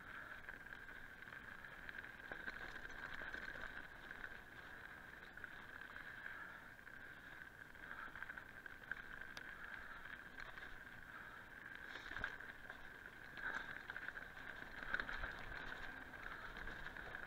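Mountain bike rolling fast down a dirt singletrack: a steady high-pitched buzz from the moving bike, with knocks and rattles as it hits bumps, the strongest about twelve and fifteen seconds in.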